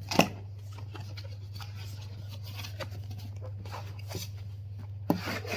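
A headphone package being opened by hand: a sharp knock about a quarter second in, then light scraping and packaging rustles, and a cluster of louder handling noises near the end, over a steady low electrical hum.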